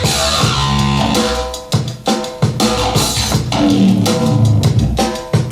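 Instrumental passage of a song played back through Dali Callisto 2C loudspeakers: drum kit with bass drum and snare keeping a steady beat under sustained melodic notes.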